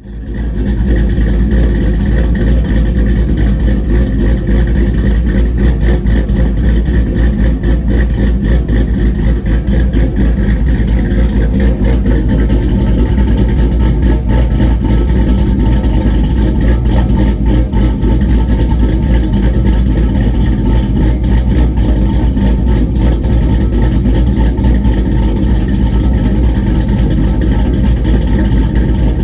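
LS-swapped Ford Lightning pickup's GM LS V8 engine running steadily under way, with exhaust and road noise, heard from inside the cab.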